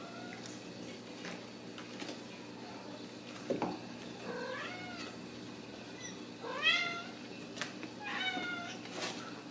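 Ragdoll kittens mewing: three short mews in the second half, rising and falling in pitch, with a few light knocks scattered throughout.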